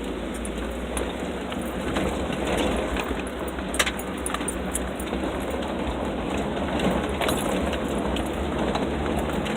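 A vehicle driving over rough ground: a steady low rumble with loose rattles and small clicks, and one sharp knock about four seconds in.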